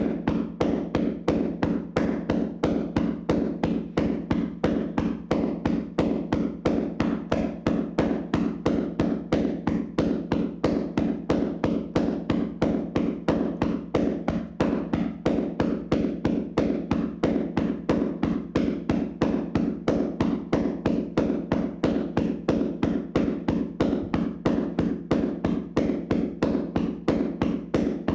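Hands slapping a person's body in a vigorous tapping massage: an even, unbroken run of fleshy strikes, about three to four a second.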